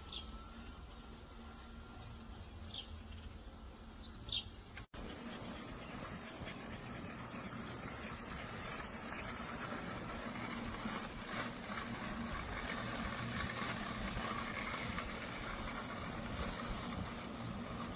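Robotic lawn mower running, a steady motor hum with a whine. In the first few seconds a bird chirps a few times, and after an abrupt cut about five seconds in the mower sound is louder.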